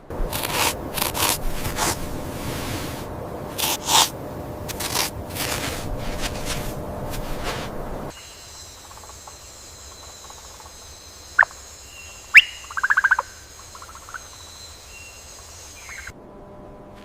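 Outdoor nature ambience. For the first half, loud rustling noise with scattered sharp clicks. Then a quieter stretch with a steady high-pitched hum and a few short bird chirps, including a quick trill just after the middle.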